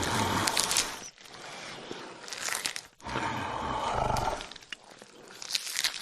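Designed dinosaur roar sound effects: a long roar at the start and another about three seconds in, with shorter calls between them.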